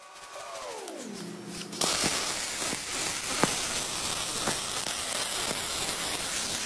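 A pitched tone with overtones glides steadily downward over the first second and a half. Then MIG welding sets in: a steady crackling hiss from the arc with occasional sharp pops.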